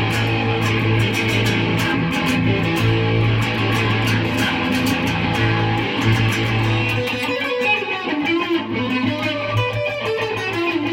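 Electric guitar played through an amp over an AKG WMS 40 Mini wireless instrument system, riffing steadily on a repeated low note with rhythmic picking.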